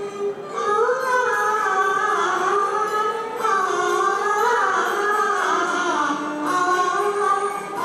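A woman singing a slow, gliding Chinese song melody over instrumental accompaniment; a held note gives way to the sung line just after the start.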